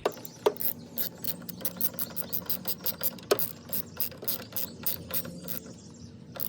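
Socket ratchet wrench clicking in a quick, even run, about four or five clicks a second, as the positive battery cable clamp is tightened onto its post. The clicks stop a little under a second before the end.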